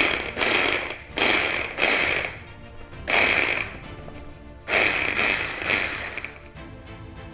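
Small blender pulsed in short bursts, chopping cauliflower florets into rice-sized crumbs: four runs of a second or so each, with brief pauses between.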